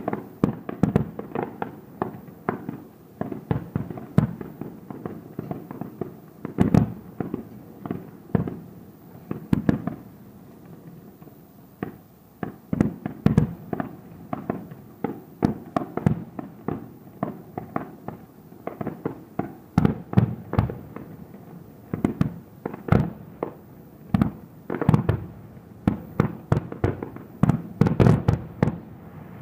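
Fireworks finale: aerial shells bursting one after another in a rapid string of deep bangs, with a brief lull about a third of the way in and a dense volley near the end.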